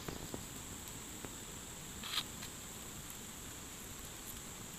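Wood campfire crackling with scattered sharp pops, over a steady background hiss and a continuous high insect buzz.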